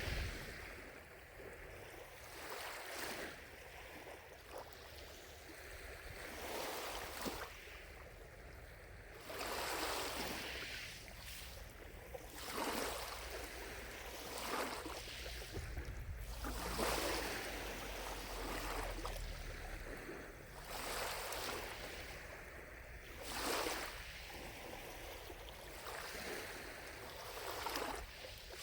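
Gentle lake waves lapping, each wash swelling and fading about every three seconds.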